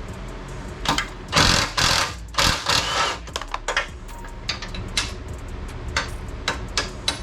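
Hand tools working on a car's front-end suspension: metal clicking and clanking, with two louder rattling, scraping stretches about a second in and again around the third second, then a run of quick clicks.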